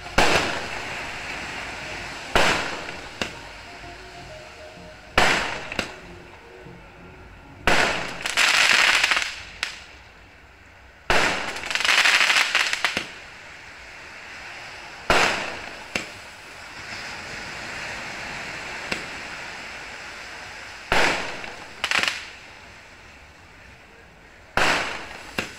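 Aerial fireworks going off: about ten sharp bangs at irregular intervals, each fading away over a second or two. About eight and twelve seconds in come two longer stretches of dense crackling as shells burst into showers of crackling stars.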